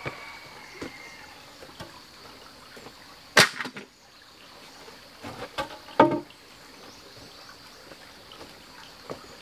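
A sharp knock about three and a half seconds in, then a cluster of heavy knocks around six seconds in as a wooden log is dropped onto a rock floor.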